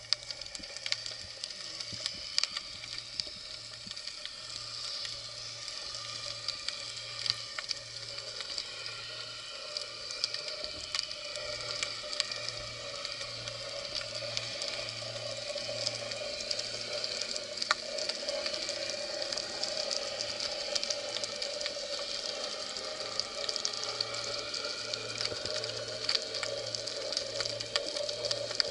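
Underwater sea ambience: a constant crackle of tiny clicks over a steady hiss, with a low hum pulsing on and off.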